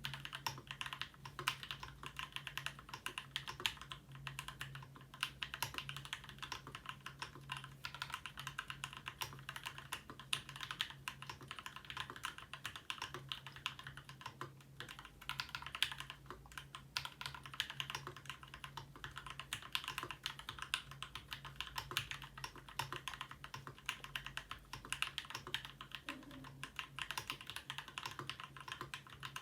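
Continuous typing on a Ramaworks M60-A Seq2 custom keyboard with Gateron Black Ink linear switches, lubed with Krytox 205g0 and fitted with switch films, an internal dampener and GMK keycaps. The keystrokes come as a fast, even stream of clacks, with a faint steady hum underneath.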